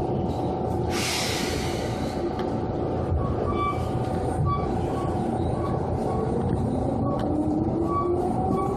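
Japanese 2000 series electric train running, with a steady rumble throughout. There is a burst of hiss about a second in, and near the end a motor whine that rises in pitch as the train speeds up.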